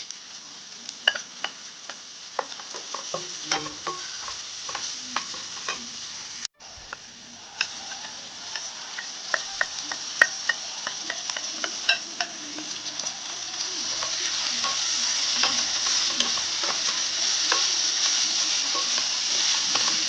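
Food sizzling in hot oil in a pan while being stirred, with the utensil clicking against the pan. There is a brief gap about six seconds in, and the sizzle grows steadily louder over the second half.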